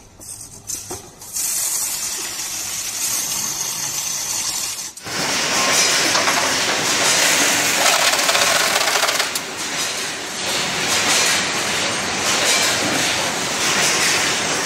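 Carton sealing machines running as cartons pass over the roller conveyor: a steady mechanical noise that changes abruptly about five seconds in to a louder, fuller run.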